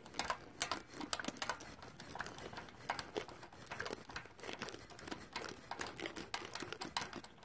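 Light, irregular clicks and taps of a spark plug socket being turned by the fingers, spinning a loosened spark plug out of its threads.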